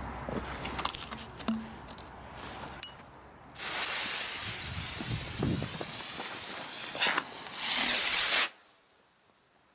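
Firework rocket's fuse catching and hissing for about three seconds after a quieter start, then the rocket launching with a loud rushing whoosh near the end that cuts off suddenly as it climbs away.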